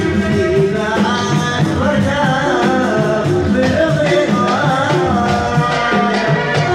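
A man singing through a hand-held microphone, amplified, with long, bending held notes over instrumental backing with a steady percussion beat.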